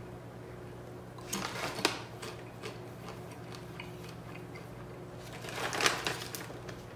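Thin banana chips crunched between the teeth: two short bursts of crunching, about a second in and again near six seconds, with faint chewing clicks between. A steady low hum runs underneath.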